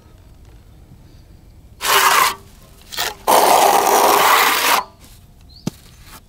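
A steel putty knife scrapes over a rough plaster wall, spreading renovation filler. There are two rough scraping strokes, a short one and then a longer one of about a second and a half, followed by a light tick.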